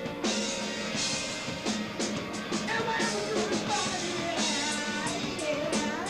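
Live hard rock band playing an instrumental stretch: electric guitar, bass guitar and drum kit, with frequent sharp cymbal and drum hits and some bending lead lines.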